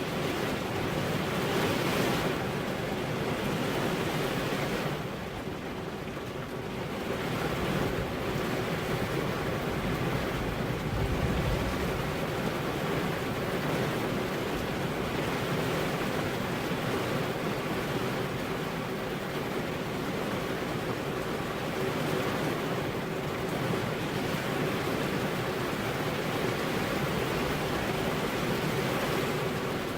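Steady rain falling on a car's windows, softening for a couple of seconds about five seconds in before picking up again.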